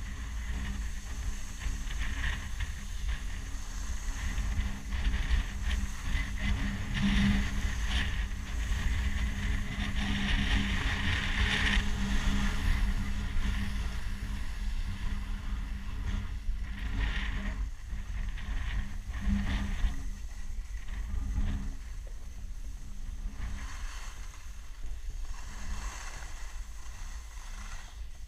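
Wind buffeting the camera microphone while skiing, a low rumble under a rushing hiss of skis sliding and scraping over groomed snow that swells and fades with the turns.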